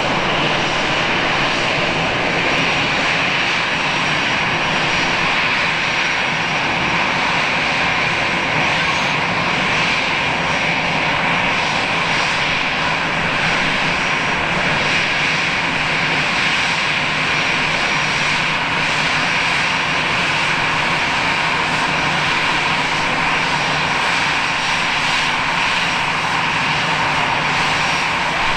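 Airbus A320-214's twin CFM56 turbofan engines idling as the airliner taxis: a steady jet whine over a low hum, holding an even level throughout.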